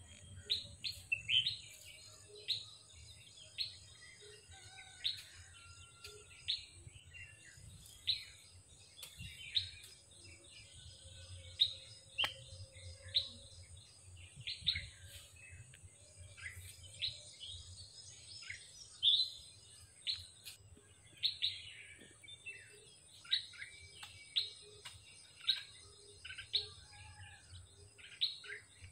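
Birds chirping in short, sharp calls, one every second or so, over a steady thin high-pitched hum and a faint low rumble.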